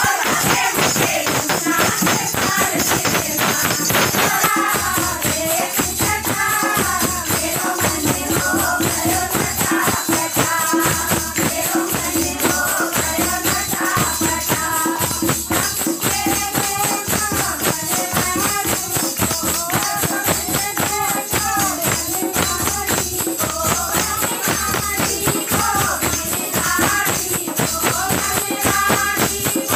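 Devotional kirtan music: singing with a tambourine jingling over a steady beat, to which the women dance.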